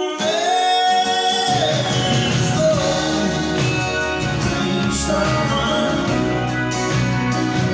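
Live band performance: a long sung note with a wavering pitch, then the full band, with bass and drums, comes in about a second and a half in and plays on.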